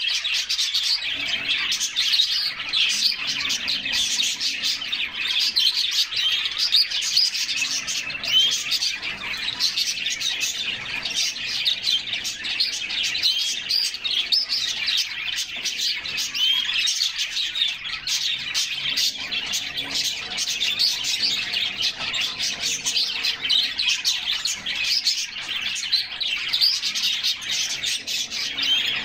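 A group of canaries chirping and singing, many quick high calls and trills overlapping without a break.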